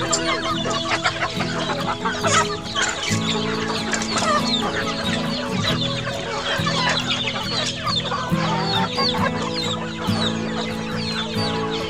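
A flock of chickens and young chicks clucking and cheeping as they feed, a busy stream of short, quick chirps. Steady background music plays underneath.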